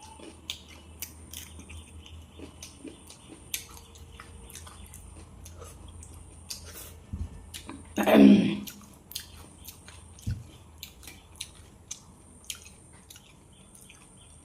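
A person chewing and eating, with many small wet mouth clicks and smacks. A short burst of voice breaks in about eight seconds in.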